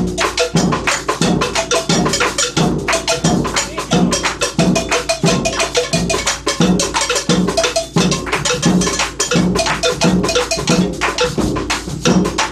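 Percussion group playing a steady rhythm on drums: a low beat about twice a second with fast clicking strokes over it.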